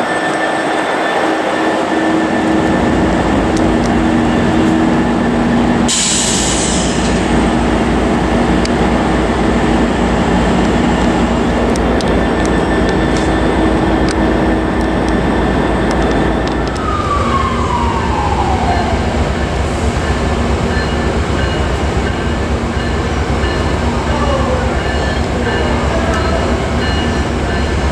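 An Amtrak F59PHI locomotive's twelve-cylinder EMD 710 diesel idling steadily up close, with a short burst of air hiss about six seconds in. About two-thirds through, the sound changes to the lower rumble of an approaching Metrolink push-pull train, with a brief falling tone.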